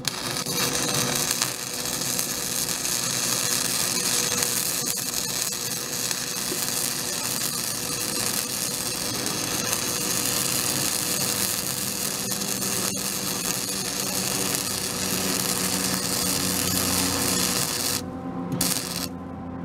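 Wire-feed welder arc crackling steadily as a bead is run on a steel bumper bracket patch. About 18 seconds in the arc stops, strikes again briefly, then stops.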